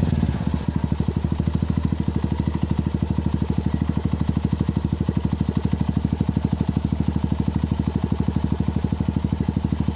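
Honda TMX single-cylinder four-stroke engine idling through an open bullet-pipe muffler with the silencer removed: a steady, loud, even exhaust pulse. Right at the start the revs fall back and settle to idle.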